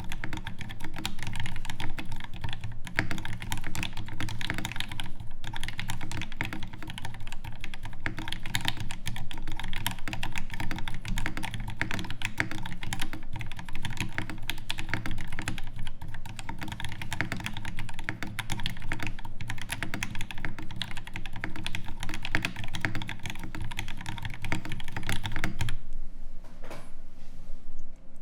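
Steady, fast typing on a custom mechanical keyboard with an aluminium case, brass plate and brass weights, lubed and filmed Alpaca linear switches and GMK keycaps: a dense, continuous stream of keystrokes.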